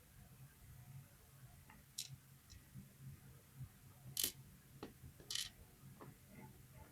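Faint, scattered sharp clicks and taps of small metal lock pins and parts being handled, about six in all, the loudest a little past the middle, over a faint steady low hum.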